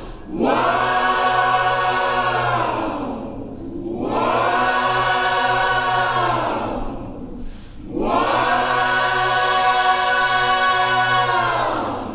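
Mixed choir of women's and men's voices singing a cappella: three long held chords with short breaks between them.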